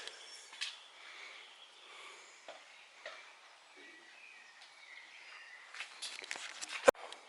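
Quiet outdoor ambience with faint bird chirps and scattered crunching and rustling of steps on debris, which grows busier near the end. A single sharp knock, the loudest sound, comes just before the end.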